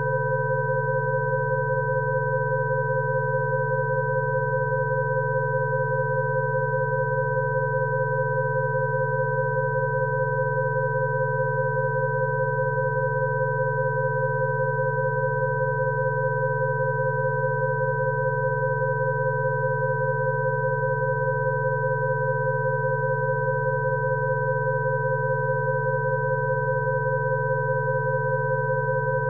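Electronic Rife-frequency tones: a low hum under several higher pure tones, all sounding together and held steady without change.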